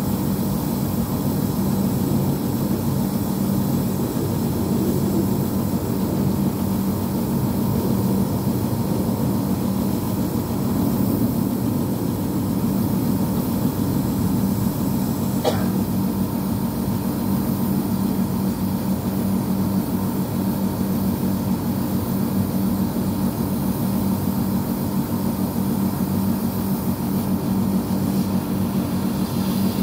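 Split air conditioner outdoor unit running: a steady compressor hum under the whirr of its condenser fan. The unit is being run while refrigerant is let out of it, which the technician says was overcharged and not cooling. A brief sharp click about halfway through.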